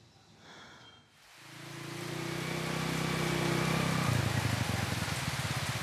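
Heavy rain falling, with a motorcycle engine that comes in about a second in and grows louder as the bike approaches. After about four seconds the engine note drops to a low, fast pulsing beat.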